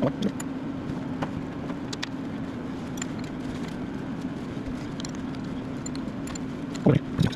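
A steady mechanical hum at one low pitch, with scattered faint clicks and a louder burst of low sound near the end.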